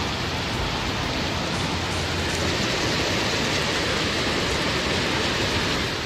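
Heavy rain and fast-flowing floodwater making a steady, even rushing noise.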